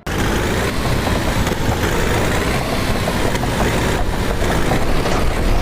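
Vehicle engine running steadily, loud and dense, starting abruptly and holding at one level without revving.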